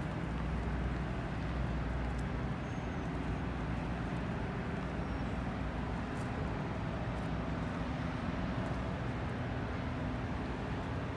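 Steady low engine rumble with a continuous low hum and no distinct events standing out.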